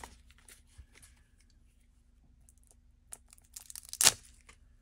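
Packaging of a trading-card starter deck being torn open: near quiet at first, then a few small crinkles and one sharp rip about four seconds in.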